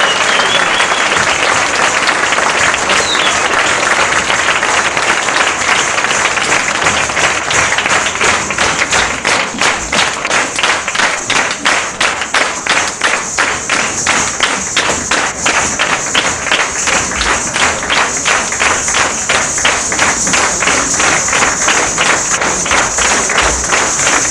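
Theatre audience applauding. About eight seconds in, the scattered clapping falls into steady rhythmic clapping in unison.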